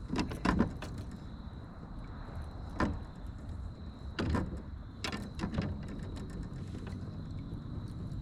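About six scattered sharp clicks and knocks, like gear being handled in a kayak, over a low steady rumble and a faint steady high tone.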